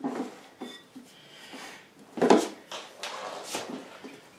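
South Bend 13-inch lathe drive unit being shifted by hand inside its cabinet leg: a run of metal clunks and knocks with some scraping, the loudest about two seconds in.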